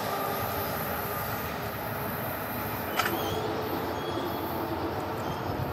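Steady rumble of an NJ Transit push-pull train, electric locomotive at the rear, as it moves away down the track, with one sharp click about three seconds in.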